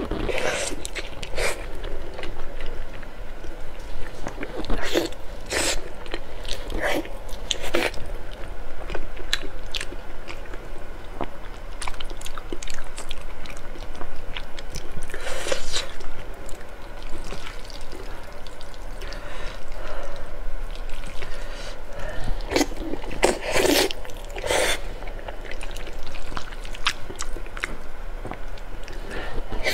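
Close-miked eating: a person biting into and chewing a soft, sauce-glazed grilled eel fillet and spicy noodles, with wet chewing and mouth sounds coming in irregular bursts.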